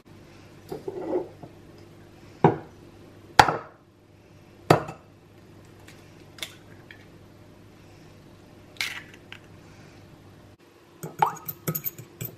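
Eggs cracked against the rim of a ceramic bowl: a few sharp knocks, three of them loud. Near the end, a fork beating the eggs in the bowl, a rapid run of clinks.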